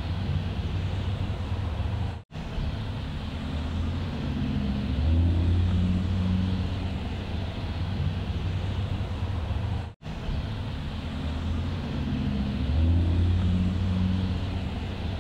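Car driving: a steady low engine and road rumble that swells a little twice. The sound cuts out for an instant about two seconds in and again about ten seconds in.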